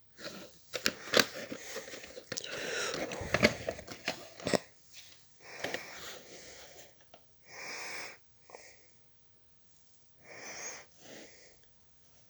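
Handling and unwrapping of a VHS tape and its case: sharp clicks and crinkling for the first four seconds or so. Then come a few separate breathy puffs close to the microphone.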